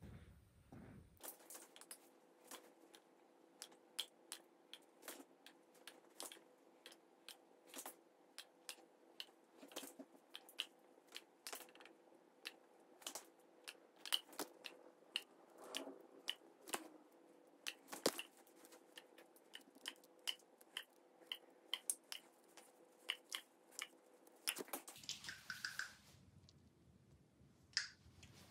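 Faint, irregular clicks and taps, about one or two a second, over a steady low hum of room tone.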